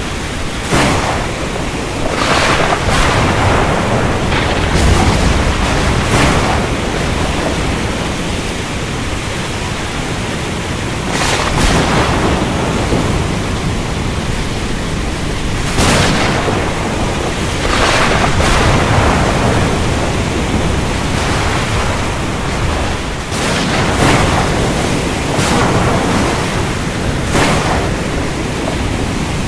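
Thunderstorm: steady heavy rain with sharp thunder cracks every few seconds, each fading out quickly.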